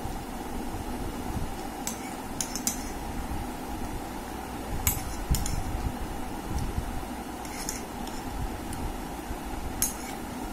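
A metal spoon clinking and scraping against a small plate as the last of a sweet is scooped up: a handful of short, sharp clinks spread out over several seconds, over a steady background hum.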